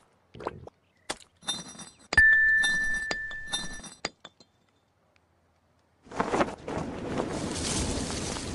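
Cartoon sound effects: a run of sharp clinks, then a loud crash about two seconds in with a high ringing tone that lasts about a second and a half. After a short silence, a noisy wash rises in the last two seconds.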